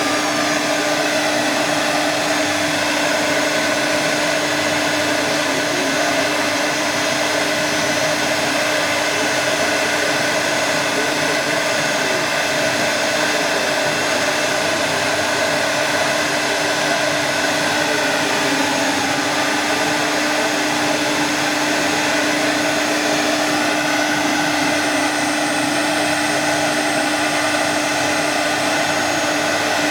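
Double-head CNC router running steadily: a continuous, even motor whine and rushing noise with a constant hum beneath. A faint high tone joins it about three quarters of the way through.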